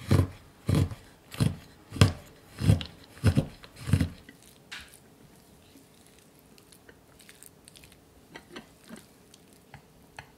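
Kitchen knife chopping white chocolate on a wooden cutting board: about seven steady chops, roughly one every two-thirds of a second, stopping about four seconds in. After that come only faint soft clicks and scrapes of a silicone spatula stirring the chopped chocolate in a glass bowl.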